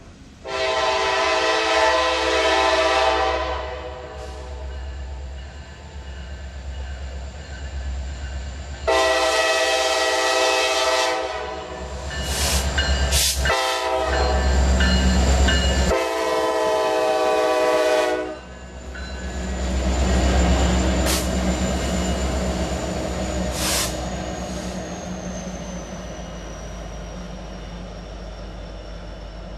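Norfolk Southern SD70ACu locomotives running light sound a multi-chime air horn in the long-long-short-long pattern for a grade crossing. The deep rumble of their diesel engines swells as they pass just after the last blast, then fades.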